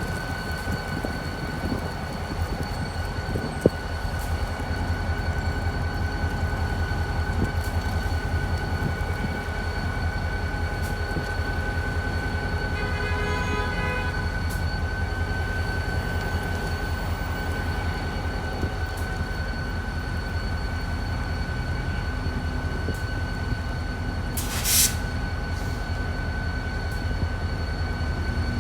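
Pan Am Railways diesel locomotive running by with a steady low engine rumble. A brief note with several pitches comes about halfway through, and a short hiss follows near the end.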